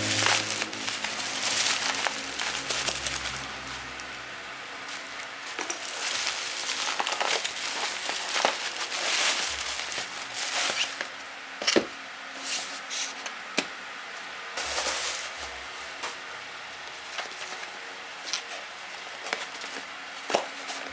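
Crinkling and rustling of packaging being handled and opened, in irregular bursts with occasional sharp clicks and taps.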